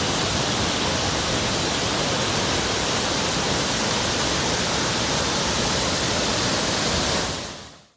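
Steady rushing of a waterfall, fading out over the last second.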